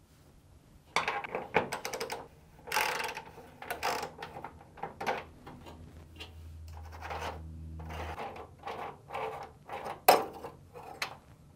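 Inlet drum-bearing shaft of a Fisher & Paykel dryer being unscrewed by hand after loosening with a socket wrench: irregular metal clicks, scrapes and rubbing, with a sharp knock about ten seconds in. A low hum sounds for a couple of seconds in the middle.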